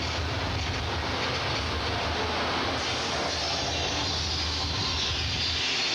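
Simulated earthquake effects in the Earthquake: The Big One subway-station ride: a steady deep rumble under a dense rushing noise, growing brighter and harsher about halfway through.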